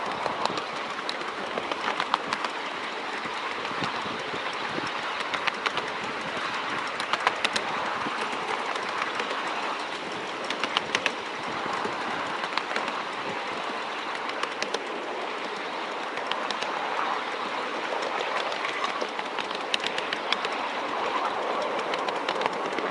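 Miniature train on the 7¼-inch gauge line, running steadily along the track: a continuous rumble with irregular sharp clicks as the wheels cross rail joints and points.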